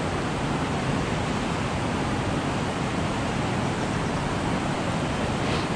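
Fast creek current rushing past, a steady even wash of water noise.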